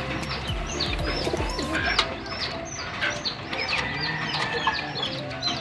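Pigeons cooing low in a loft, under a steady run of short, high chirps from other birds, about two or three a second.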